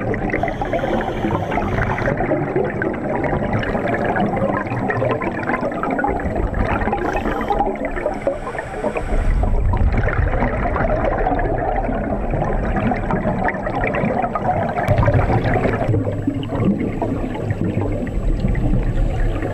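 Underwater bubbling and gurgling from scuba divers' exhaled air and breathing through their regulators, muffled through the camera's underwater housing, with brief higher hisses about half a second in and again around the middle.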